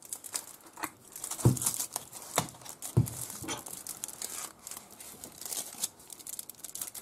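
Aluminium foil wrapped around a condensed milk container crinkling and crackling as it is handled, with scattered small plastic clicks and two dull knocks about a second and a half apart.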